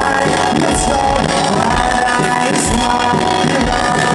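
A live rock band playing loudly through a venue's PA, with electric guitars.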